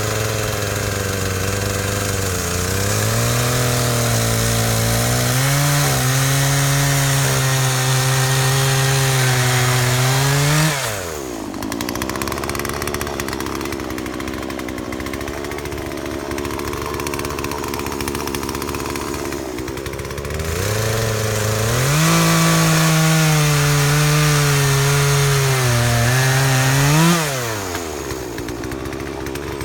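Poulan two-stroke chainsaw ripping lengthwise through a red oak crotch block. It is throttled up to full speed twice, for about eight seconds and then about six, and its pitch wavers as the chain bites. Each time it falls back to a lower idle when the throttle is released.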